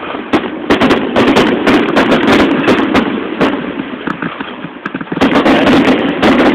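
Fireworks going off in a rapid barrage: many sharp cracks and pops in quick, irregular succession over a steady rumble. The popping eases briefly about two thirds of the way through, then picks up again.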